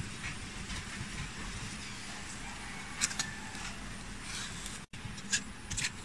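Hands handling leaves on a styrofoam sheet: a few light taps and rustles, about 3 seconds in and again near the end, over a steady low background rumble with a faint hum.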